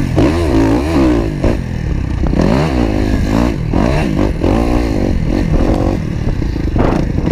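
Motocross bike engine revving hard as it is ridden over a dirt track, its pitch climbing and dropping again and again as the throttle is opened and closed through the turns and straights.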